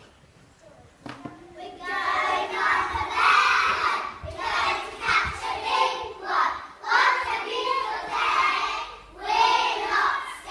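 A group of young children singing or chanting together in unison, starting about two seconds in, in short phrases with brief breaks between them.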